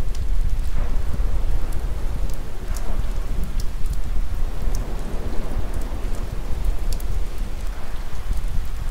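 Steady rain ambience with a deep low rumble underneath and scattered sharp ticks like drips.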